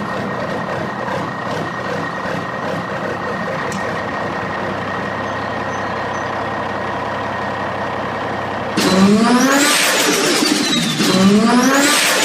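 Car engine sound effect: steady running for most of the time, then about nine seconds in it gets louder and revs up in repeated rising sweeps, like a car accelerating up through the gears.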